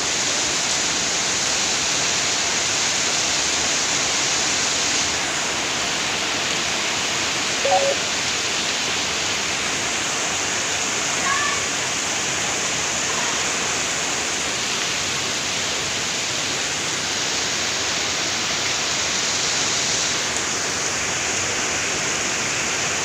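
Heavy rain pouring down in a steady, even downpour, with a couple of short faint calls about 8 and 11 seconds in.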